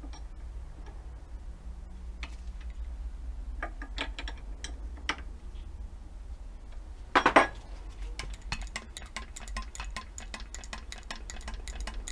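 A hand-lever grease gun rigged as a pump is worked to force hydraulic pressure into a seized brake caliper, giving scattered metallic clicks and clinks. About seven seconds in there is a louder clatter of three quick knocks, followed by a rapid run of fine ticking.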